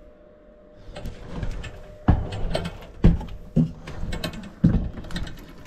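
Footsteps climbing a wooden attic ladder: a run of heavy thumps, one every half second to a second, starting about two seconds in, with rustling and handling noise between them.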